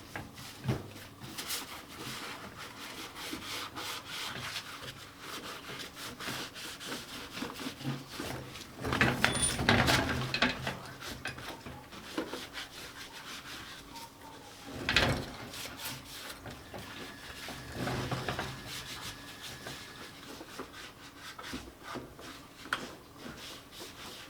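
Continuous rubbing and scraping with many small ticks, with a louder stretch about nine seconds in and a short loud scrape near the middle.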